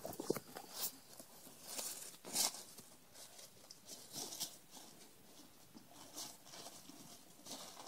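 A Samoyed chewing and tearing a Dairy Queen paper wrapper: irregular crinkling, rustling and ripping of paper mixed with gnawing, the loudest rip about two and a half seconds in.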